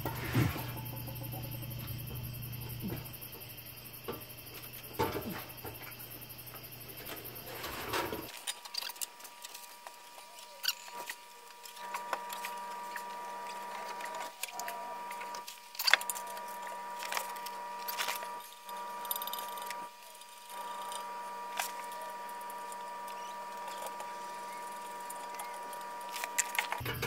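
Scattered small clicks, taps and scrapes of hand tools working on exhaust bolts and hardware under a car, irregular rather than rhythmic. A low hum underneath cuts out about eight seconds in, leaving a faint steady high tone.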